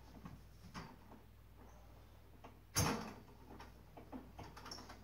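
Handling noise from the animatronic clown prop's metal stand frame being worked on: faint clicks and rattles, with one sharp knock a little under three seconds in.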